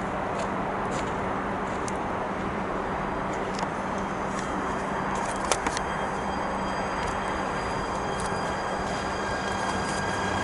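Arriva Stadler FLIRT passenger train approaching and pulling into the station: a steady rumble with a low hum underneath. From about halfway through, thin high whining tones join in and grow as it comes close, with a couple of sharp clicks just before.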